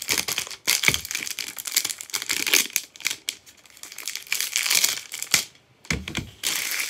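Thin clear plastic shrink-wrap crinkling and crackling in irregular bursts as it is peeled off a CD jewel case. A dull knock comes near the end.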